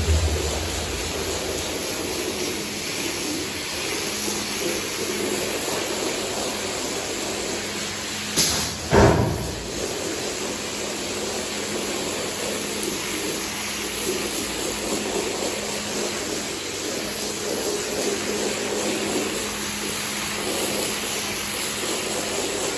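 Pressure washer's high-pressure water jet spraying onto a wet rug: a steady hiss and spatter of water, with a faint steady hum beneath it. A brief louder burst comes about nine seconds in.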